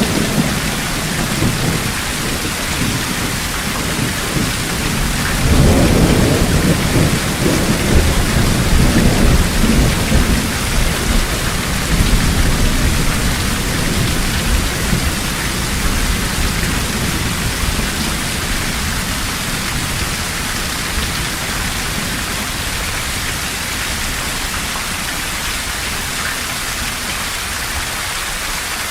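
Heavy rain falling steadily, with a roll of thunder that swells about five seconds in, rumbles for several seconds and slowly dies away.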